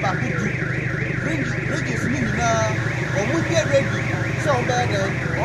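An electronic alarm warbling continuously, its pitch sweeping up and down several times a second, like a car alarm.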